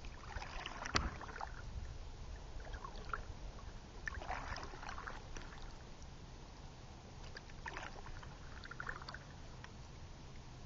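Kayak paddle strokes dipping and splashing in calm river water every few seconds, with a sharp click about a second in.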